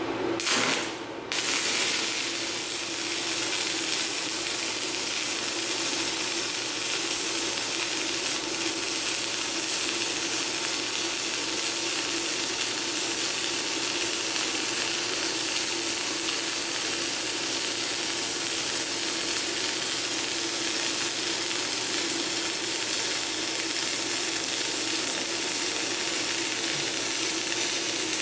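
Stick-welding arc from a 3/32 in (2.4 mm) 6013 general-purpose electrode at 70 amps on a PRO-TEC 100S inverter welder. It is struck about a second in, then burns with a steady, even crackling hiss. The arc is smooth, stable and soft, with no spatter.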